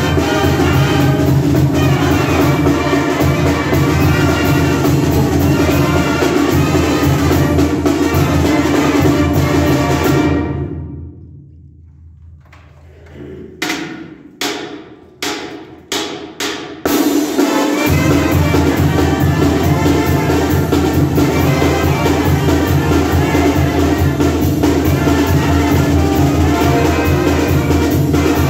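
Mexican banda of trumpets, trombones, tuba, clarinets, snare drum and bass drum with cymbal playing loud, steady music. About ten seconds in the music drops away, a handful of sharp drum and cymbal strikes follow, and the full band comes back in a few seconds later.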